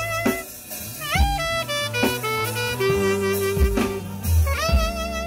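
Saxophone playing a slow, sweet Thai luk thung melody, sliding up into several of its held notes, over a backing of bass and drum kit.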